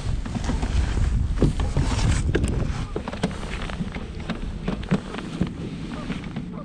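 Wind buffeting the microphone as a low rumble, with scattered small clicks and knocks.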